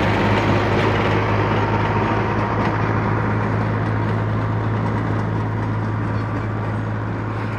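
An engine running steadily at constant speed, with a strong low hum, slowly growing a little fainter.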